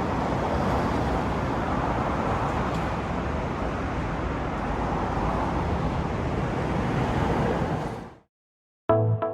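Steady street traffic noise that fades out about eight seconds in. After a short silence, background music with struck, ringing notes starts near the end.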